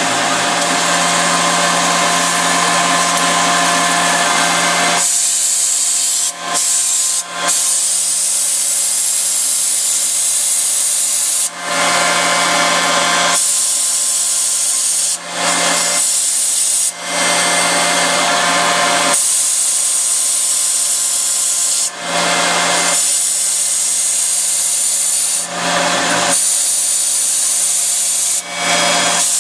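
Tormach PCNC 770 CNC mill spindle running at 9600 RPM while a 1/8-inch four-flute end mill cuts slots into the face of an enclosure box. It is a loud, steady machining whine with a hiss over it, and the sound shifts abruptly every few seconds.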